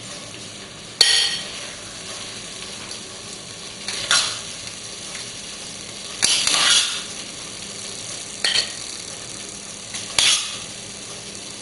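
A spoon scraping risotto out of a stainless steel pot and onto a plate, about five short scrapes, the first starting with a sharp clink and one around the middle lasting longer.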